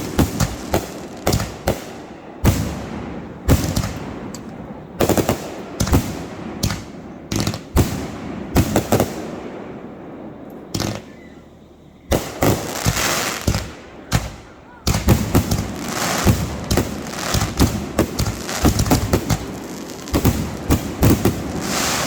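Consumer fireworks going off: a rapid, irregular series of sharp bangs and pops, with long stretches of dense crackling from about halfway through.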